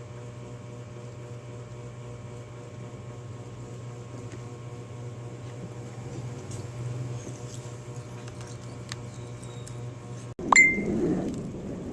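A steady low electrical hum for about ten seconds; then, after a sudden cut, a short high notification ding sounds over a brief, louder burst of noise.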